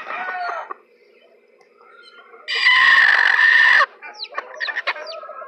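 A broody hen sitting on her eggs lets out one loud, harsh squawk of about a second, a little past halfway, then a run of short, quick clucks.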